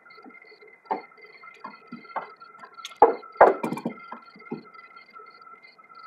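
Irregular metallic clicks and knocks of hand tools working a radiator hose clamp, loudest in a cluster a little after three seconds in, over a faint steady high-pitched tone.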